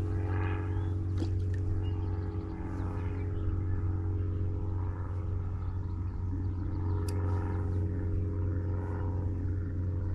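Electric trolling motor on a kayak humming steadily, with a low, even rumble underneath.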